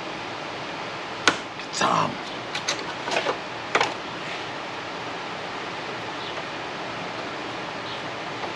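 Metal being pulled and pried loose from a rusted Range Rover Classic fender: a sharp snap about a second in, then a cluster of smaller clicks and a brief scrape over the next few seconds. A steady hiss underneath.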